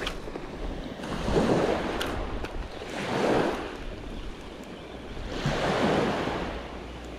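Small waves breaking and washing up a sandy beach: three swells of surf, a couple of seconds apart, each rising and then falling away.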